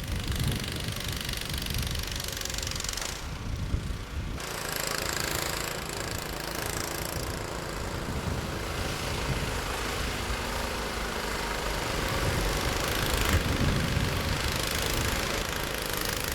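An engine running steadily under a broad rushing noise, with a short drop in the rushing about three seconds in.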